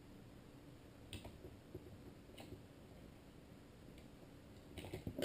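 Faint clicks and taps of plastic instrument-cluster parts being handled and fitted together, a few scattered clicks with a louder knock near the end.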